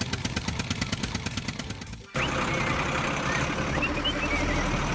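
A small vehicle engine running with a fast, even putter. About two seconds in it cuts off abruptly, giving way to a steady rumbling ambience with a few short, high chirps.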